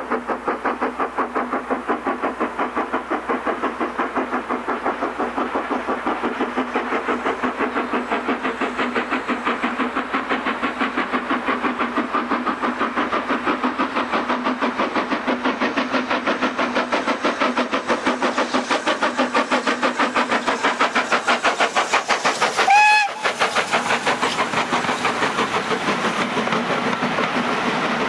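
BR Standard Class 4 4-6-0 steam locomotive 75078 working a train, its exhaust chuffing in rapid, even beats that grow louder as it approaches. Late on comes one short whistle blast, the loudest sound, and then the coaches roll past close by with a clickety-clack.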